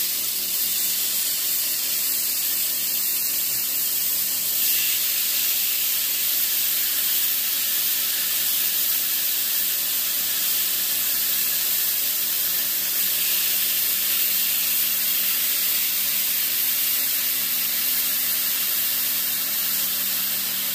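Marinated chicken thighs sizzling with a steady hiss as they are laid on the preheated grill plate of a PowerXL Air Fryer Grill, over the appliance's steady fan hum.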